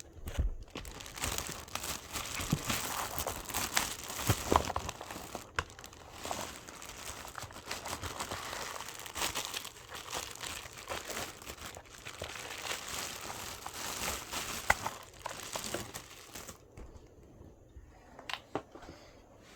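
Packaging from a desk-fan unboxing being handled: continuous crinkling and rustling of wrapping with sharp little crackles, which dies down about three-quarters of the way through, leaving a few small clicks.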